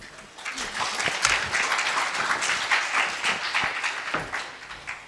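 Audience applauding: many hands clapping, building up about half a second in and dying away near the end.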